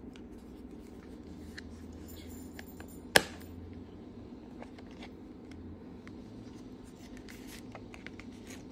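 A translucent plastic pen box being handled and opened: light taps and rubbing, with one sharp plastic click about three seconds in, over a steady low background hum.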